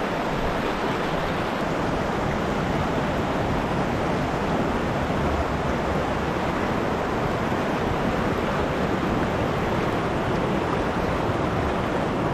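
Shallow mountain creek rushing over rocks and riffles: a steady, even rush of water.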